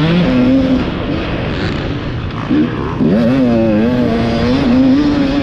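450-class motocross bike engine under hard throttle, heard from on board, with wind rush on the microphone. Its pitch rises and falls as the rider works the throttle; about three seconds in it drops sharply, then climbs and holds.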